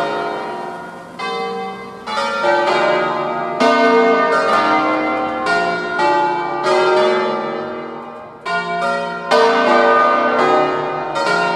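Peal of the eight-bell bronze ring in B-flat cast by Mazzola of Valduggia in 1882, the bells swinging full and ringing together in a distesa. Strong strokes come at uneven intervals, overlapping, each ringing on and fading away.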